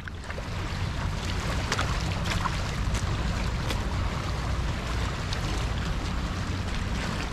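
Small harbour waves lapping and splashing against rocks at the water's edge, with many small scattered splashes, over a steady low rumble of wind on the microphone.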